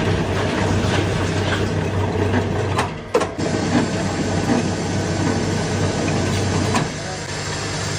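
Factory machinery running with a steady low hum and busy mechanical clatter, broken by a sharp knock about three seconds in; the sound drops to a quieter hum near the end.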